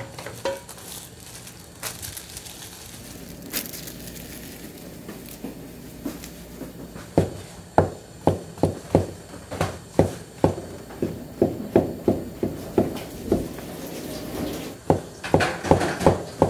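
Cleaver chopping enoki and king oyster mushrooms on a plastic cutting board: from about seven seconds in, a steady run of sharp knocks, two to three a second, then a quicker flurry near the end.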